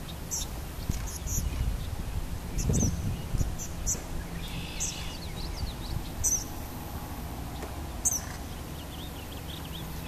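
Birds chirping: short, high chirps scattered throughout, with quick runs of repeated calls around the middle and again toward the end, over a low rumble.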